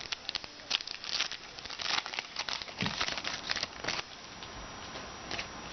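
Trading cards and their foil pack wrapper being handled by hand: quick rustles, crinkles and card flicks for about four seconds, then quieter.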